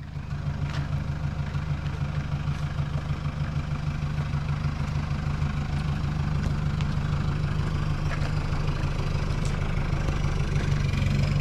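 An engine running steadily at idle, a low hum with an even, fast pulsing. It comes in abruptly at the start and grows slightly louder near the end.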